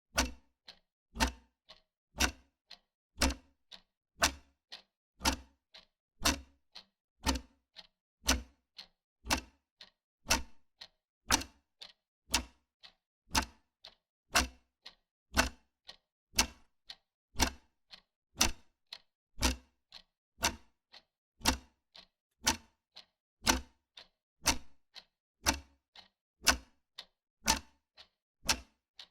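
Wall clock ticking steadily, about two ticks a second, alternating a stronger and a weaker tick in an even tick-tock.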